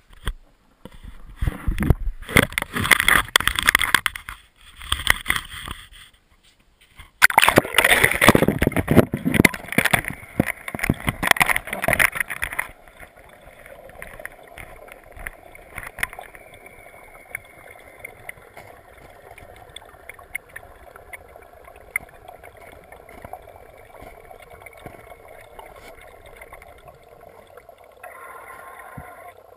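A GoPro in its waterproof housing going down an ice-fishing hole: two stretches of loud bumping, scraping and sloshing in the first dozen seconds. Then, once it is underwater, a muffled steady hum with faint scattered clicks.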